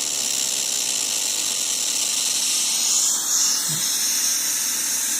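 Studio Projects VTB1 tube preamp's output heard through Sennheiser HD 218 headphones held near the microphone: a steady high-pitched hiss and fizz that shifts about three seconds in. This is the intermittent fault noise the second-hand unit starts making after 15-20 minutes of use.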